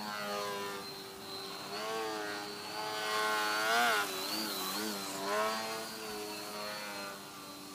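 Motor and propeller of a radio-control Edge 540T aerobatic plane flying low and hovering nose-up, its pitch rising and falling with throttle changes. It is loudest a little under four seconds in, with a second surge about five and a half seconds in.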